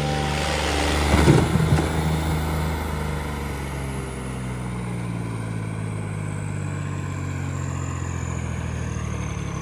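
Tractor engine running steadily under hard load, with a louder, rougher surge about a second in. A faint high whine falls slowly in pitch over the second half.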